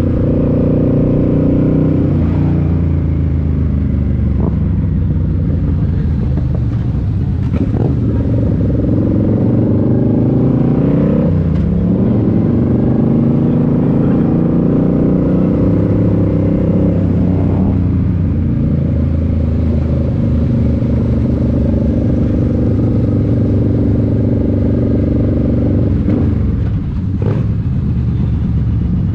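Suzuki C50 Boulevard's V-twin engine, fitted with a Cobra aftermarket exhaust, running under way in traffic. The engine pitch rises and falls a few times as the bike speeds up and eases off, with a couple of rising revs around the middle.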